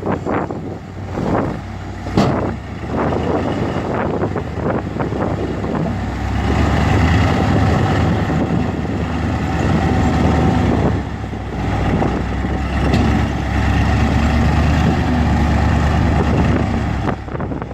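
Heavy earthmoving machinery's diesel engine working under load, growing louder about six seconds in and easing off briefly twice. A sharp knock sounds about two seconds in.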